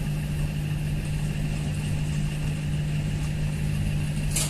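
Train engine running steadily with a low, even hum, and a brief hiss near the end.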